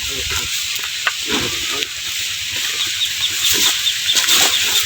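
Corn sheller machine running, with a steady hiss and clatter of cobs and kernels going through it. A fast run of high chirps joins about three seconds in.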